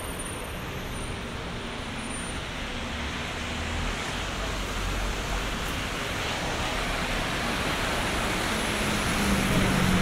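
Road traffic on a wet street: tyres hissing on the rain-soaked tarmac, growing steadily louder as vehicles approach. A low engine hum builds near the end as a double-decker bus draws near.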